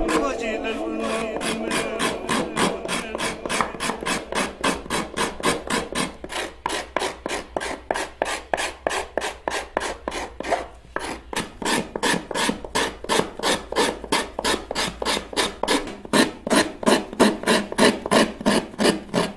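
Curved steel scraper shaving the inside of a hand-carved lenga wood bowl, in quick, even rasping strokes about two to three a second. The strokes pause briefly a little past the middle and come louder toward the end.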